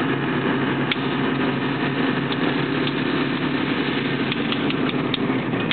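Engine of a large truck heard from inside its cab as it drives slowly, a steady drone with a few light rattles and clicks.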